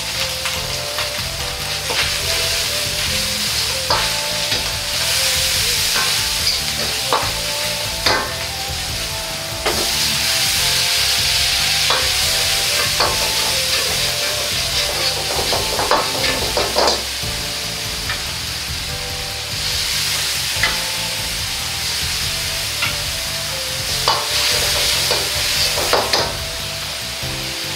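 Minced meat sizzling in a hot carbon-steel wok, stirred and scraped with a metal wok ladle that clinks irregularly against the pan. The hiss swells into louder stretches as liquid hits the hot wok and flashes into steam.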